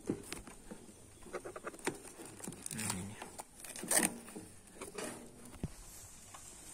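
Cardboard box and plastic tape wrapping being handled and pulled open by hand: scattered light clicks, taps and rustles, with one louder crackle about four seconds in.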